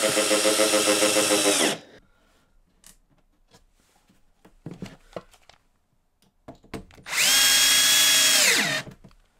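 Cordless 12V drill-driver driving wood screws through an MDF panel into the OSB edge of a drawer: one screw finishes about two seconds in, with the motor whine dropping as it stops. A few light clicks follow as the next screw is set by hand, then a second screw is driven in near the end, again winding down as the motor stops.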